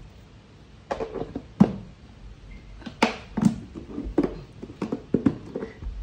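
Wooden pestle pounding steamed rice and mugwort dough in a stainless steel bowl to make mugwort rice cake, about a dozen irregular dull thuds, the loudest about one and a half seconds in.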